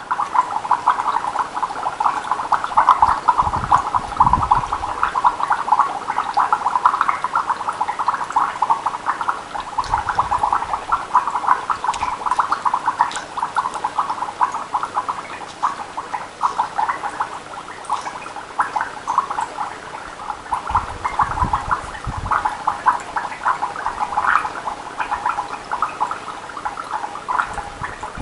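Breath blown through a drinking straw into a glass of water, bubbling continuously as a dense run of rapid small pops, with now and then a low thump. The exhaled carbon dioxide is being bubbled in to acidify the water.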